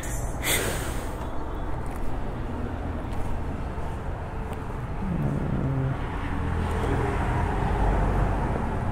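Road traffic noise with vehicle engines running. There is a brief rushing noise about half a second in, and about five seconds in an engine note climbs and then holds.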